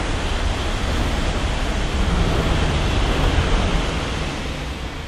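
Coupled E5 and E6 series Shinkansen trains passing at speed: a steady rushing noise with a deep rumble underneath, fading over the last second as the train moves away.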